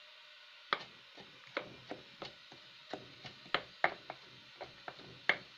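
Wooden rolling pin tamping shredded cabbage and carrot down into a glass jar: a run of about fifteen knocks, roughly three a second, starting just under a second in.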